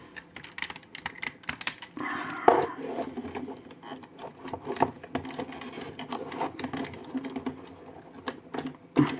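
Irregular clicks and clacks of a transforming-robot action figure's parts being handled, twisted and pulled apart, with a denser scraping rattle about two seconds in.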